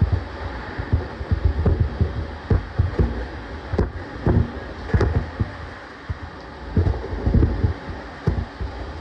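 Running noise inside an E231 series 1000-number electric train's motor car: a steady rumble of wheels on rail, broken by irregular low thumps and the odd sharp click from the track.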